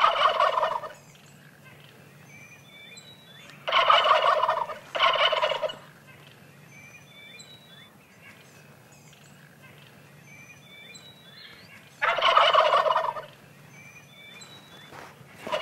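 Wild turkey toms gobbling in their courtship display: a gobble at the start, two in quick succession about four seconds in, another about twelve seconds in and a short one near the end. Faint high chirps are heard between the gobbles.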